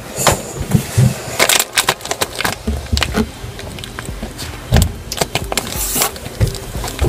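Irregular clicks, knocks and rustles of handling noise, as hands and clothing bump and brush against the recording device.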